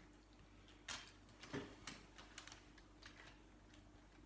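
Faint plastic clicks and clacks of LEGO train cars being set on the track and coupled together, a sharper click about a second in followed by several lighter ones.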